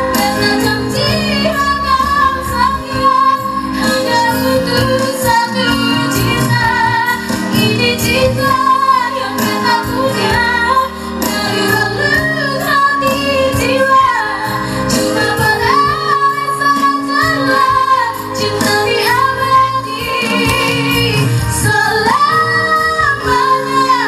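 Background music: a song with a sung vocal melody over instrumental backing with a regular beat.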